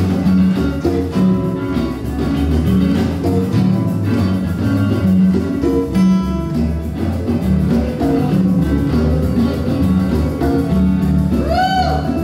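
Live band playing an instrumental passage: acoustic guitar, electric guitars and violin over a steady, repeating bass pulse, with a high note that slides up and down near the end.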